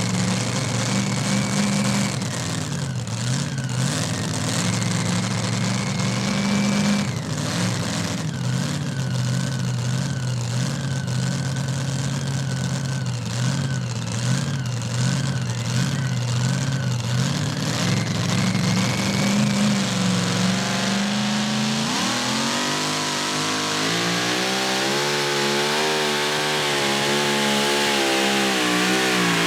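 Pulling truck's V8 engine running at low, steady revs, then revving up sharply a little over two-thirds of the way in and holding at high revs as the pull gets under way.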